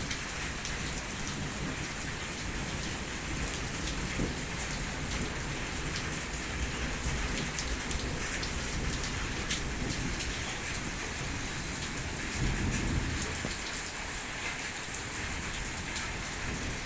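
Steady rain falling, with many small ticks of drops striking surfaces; the hail has stopped and only rain is coming down. A low rumble about three-quarters of the way through.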